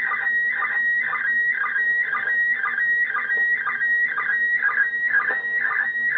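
Slow-scan TV (SSTV) image signal from the International Space Station, received on 145.800 MHz FM and played through a radio receiver. A warbling electronic tone repeats about twice a second, one pattern per scan line, over faint hiss. A fairly clear picture is being decoded.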